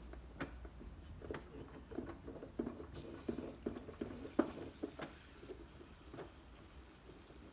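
Irregular light clicks and knocks from a Singer home sewing machine being worked by hand: the handwheel turned and the fabric shifted under the needle. The knocks come thickest in the middle, then thin out.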